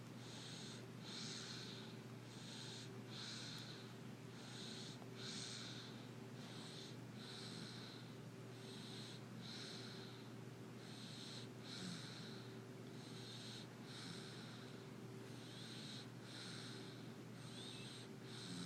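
A sleeping baby snoring softly: a breath in and a breath out about every two seconds, each heard as a short noisy hiss, over a steady low hum.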